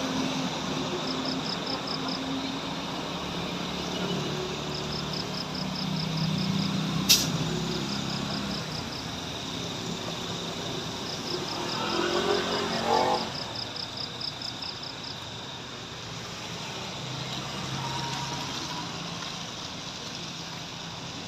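Heavy truck engine running steadily, with several runs of rapid high-pitched beeps and a single sharp click about seven seconds in.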